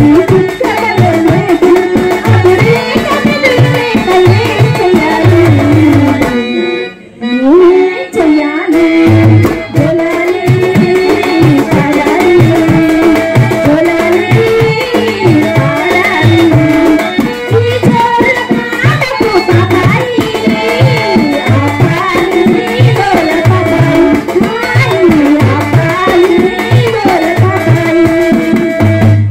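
A woman singing a Telugu burrakatha folk song through a microphone and PA, with a hand drum keeping a steady beat under her voice. The music drops away briefly about seven seconds in, then resumes.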